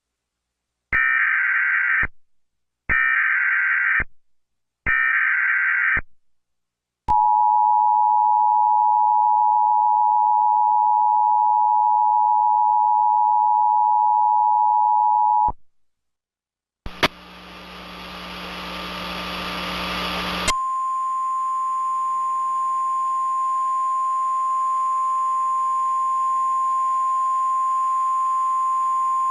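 Emergency Alert System tornado warning tones. Three short screeching digital header bursts are followed by the two-tone attention signal, held for about eight seconds. Then, after a burst of static, a single steady alert tone sounds over radio hiss, like the weather radio warning tone.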